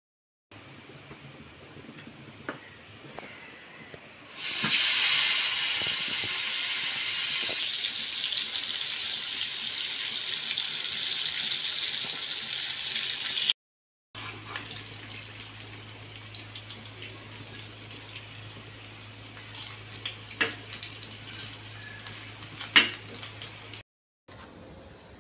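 Masala-coated ribbon fish frying in hot oil in a non-stick pan: a loud sizzle that starts suddenly about four seconds in and runs for about nine seconds. After it, a quieter stretch with a steady low hum and a few small crackles.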